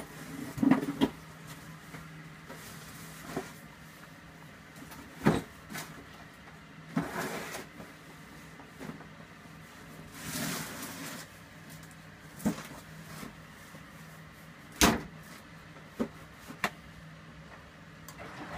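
Candy Aquamatic 2 compact washing machine on an empty Cotton 95 descaling wash, drum turning slowly in the wash phase before the spin: a low steady hum with water swishing and a series of irregular sharp knocks.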